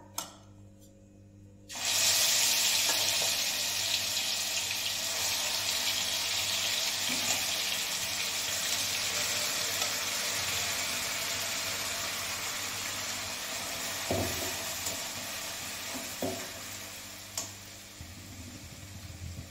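Wet ground masala paste of onion, tomato, green chilli, garlic and coriander hitting hot oil in a kadai: a loud frying sizzle that starts suddenly about two seconds in and slowly dies down. A few short knocks come near the end.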